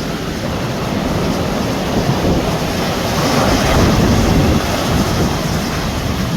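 Sea waves breaking and washing in, swelling to their loudest about four seconds in, with wind rumbling on the microphone.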